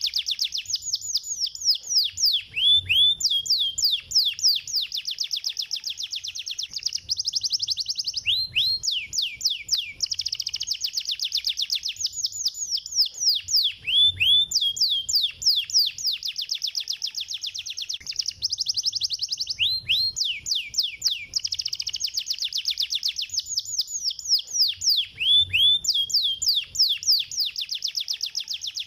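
Domestic canary singing fast, tight trills of rapid down-slurred notes. The same phrase comes back about every five and a half seconds.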